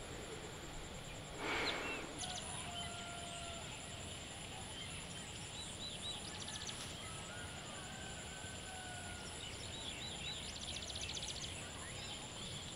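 Countryside ambience: a steady high insect drone with scattered small bird chirps, whistles and trills, and a brief fowl call, like a chicken's squawk, about a second and a half in.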